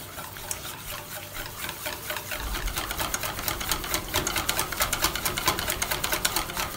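Wire balloon whisk beating a thick batter in a stainless steel bowl: rapid, rhythmic clicking as the wires strike the bowl's sides, with a wet stirring sound, getting faster and louder about two and a half seconds in.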